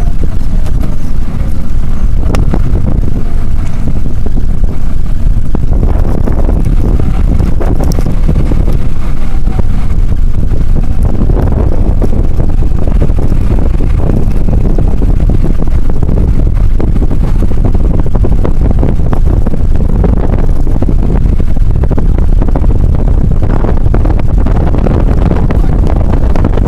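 Car driving, heard from inside the cabin: a loud, steady low rumble of road and engine noise.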